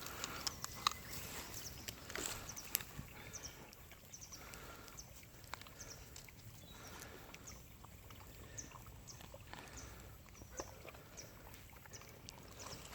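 Faint crackling of a wood campfire, with small irregular snaps and pops.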